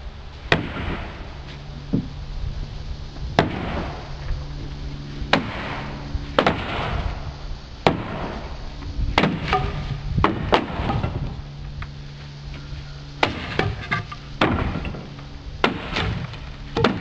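Hammer blows knocking the wooden balusters out of a deck railing: about fifteen sharp, irregular whacks, some in quick pairs or clusters, several with a brief rattling ring. A faint steady low hum runs underneath.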